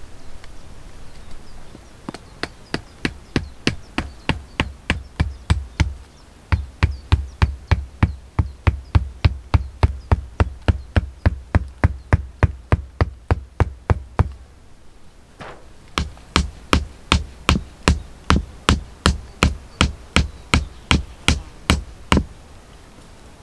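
Tarp stakes being driven into the ground with the back of a hatchet, in steady knocks about two and a half a second. After a long run the hammering breaks off for a moment about fourteen seconds in, then resumes for another six seconds or so.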